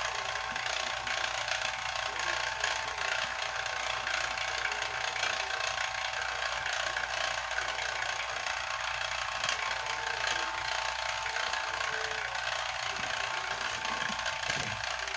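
Steady electrical buzz and hiss from a flyback transformer high-voltage supply driving a glow discharge in an evacuated glass bottle, unchanging throughout, with a faint steady whine.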